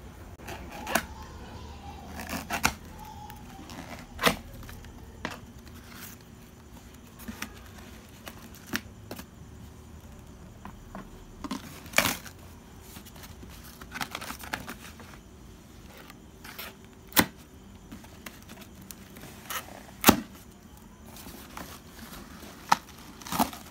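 A knife cutting plastic packing straps and slitting open a cardboard carton: irregular sharp snaps and scrapes, with cardboard tearing.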